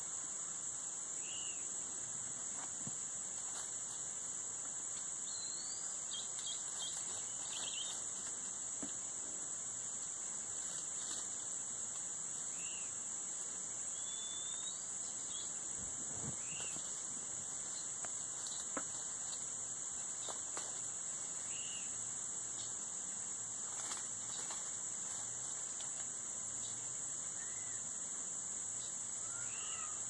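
A steady, high-pitched insect drone, with short bird chirps every few seconds and a few other brief bird notes.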